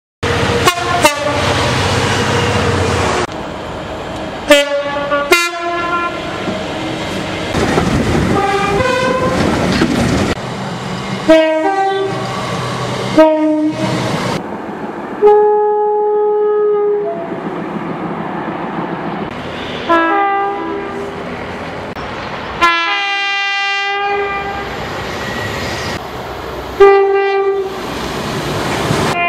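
A run of British main-line train horns, cut one clip after another: many short and long pitched blasts, some sounded as two-tone horns stepping between a high and a low note. Between and under the blasts is the noise of trains running on the track.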